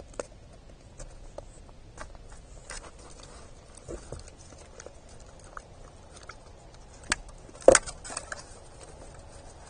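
A young buck deer feeding at a wooden platform feeder, its muzzle rummaging in the seed tray with scattered small clicks and knocks. Two sharp knocks near the end are the loudest.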